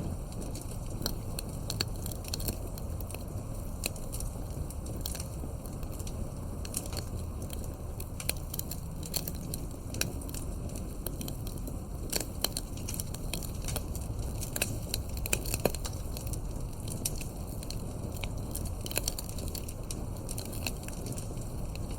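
Wood fire crackling, with irregular sharp pops and snaps over a steady low rumble of burning, a few louder pops in the middle.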